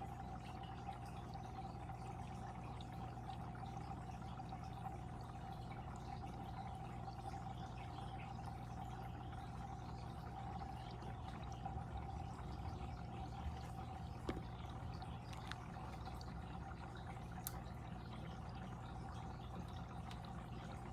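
Water in a fish tank flowing and trickling steadily, with a steady hum beneath it.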